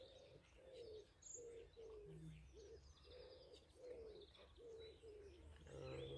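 Faint birdsong: a steady run of low cooing notes, about two or three a second, with small birds chirping higher and more sparsely.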